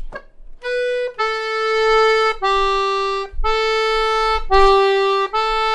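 A free-reed instrument plays a slow single-line melody, alternating between two neighbouring notes. Each note is held about a second and separated from the next only by a brief dip, not a full break. This is a demonstration of louré, notes joined yet each gently re-articulated.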